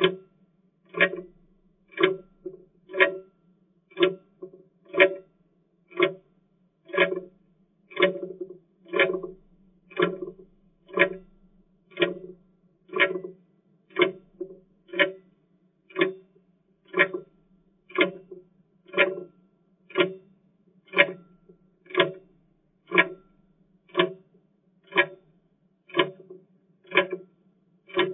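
Clock ticking, a sharp tick about once a second at a steady pace, each tick with a short ringing tail.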